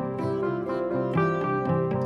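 Instrumental background music: a steady run of pitched notes changing every fraction of a second.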